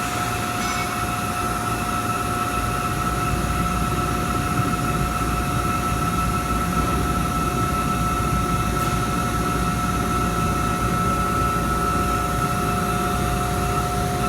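1994 Mazak Super Turbo X48 CO2 laser cutting machine running while it homes its axes: a steady machine hum with two constant tones over a low rumble that grows slightly about a second and a half in.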